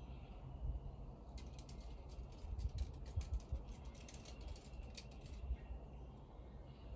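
Faint outdoor ambience: a low rumble with a quick run of faint high clicks or ticks through the middle.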